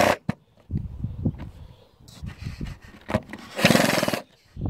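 Power drill's driver bit spinning and chattering in a deck screw head clogged with soil, twice in brief bursts: the bit slipping because it cannot grip the screw's slots. Softer low knocks of the bit against the wood come between the bursts.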